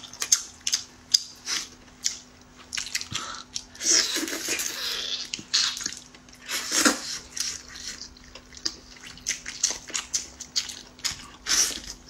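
Close-miked wet chewing and lip-smacking of braised lamb leg meat: a rapid, uneven run of small smacks and clicks, with a faint steady hum underneath.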